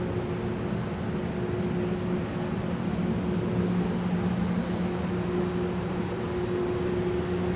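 Steady hum of a ventilation fan inside a ship's compartment: an even rushing noise with a low two-note drone.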